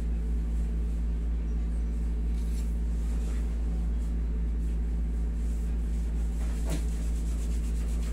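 Window-type air conditioner running with a steady low hum that does not change.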